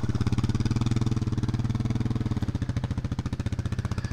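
Adventure motorcycle engine idling close by, a steady even pulse.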